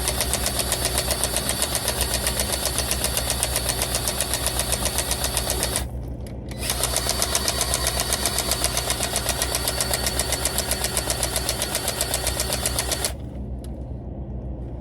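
Powered grease gun pumping grease into a grease fitting in two long runs with a fast, even pulsing, broken by a short pause about six seconds in and stopping abruptly near the end. A diesel truck engine idles underneath as a steady low hum.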